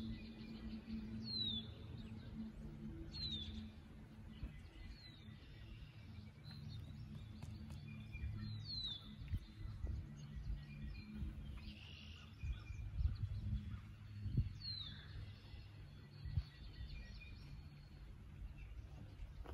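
A bird calling over and over with short, sharply falling chirps, one every second or two, with a longer gap about halfway through. A low rumble runs underneath.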